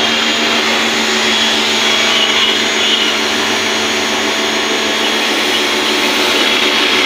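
Motor-driven pump or compressor running steadily with a hiss of spray, starting up right at the start.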